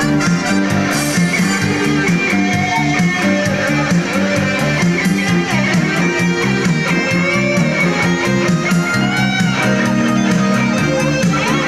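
A band playing live music, with electric guitar to the fore over a steady bass line and pitch-bending melodic lines.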